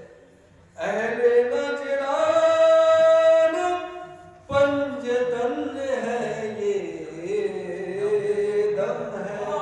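A man chanting a devotional recitation in long, drawn-out sung notes, with no instruments. After a short pause he begins a phrase about a second in and starts a second phrase about halfway through.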